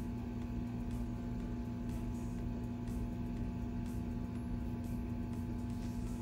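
A steady low electrical hum over a faint rumble, with no other clear sound.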